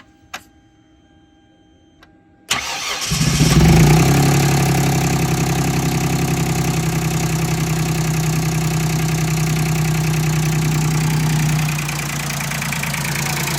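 Hyundai Sonata's 3.3-litre V6 cranking briefly, catching about two and a half seconds in after a click, flaring up, then settling into a steady idle that eases down a little near the end. The faint noise it made before is no longer heard, though the running sound has changed only slightly.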